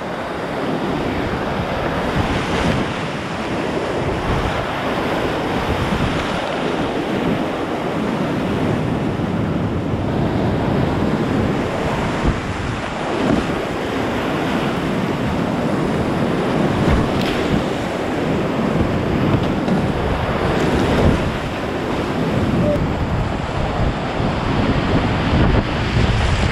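Fast whitewater rapids rushing and churning close around a kayak: a steady, loud wash of water noise, with a few brief splashes.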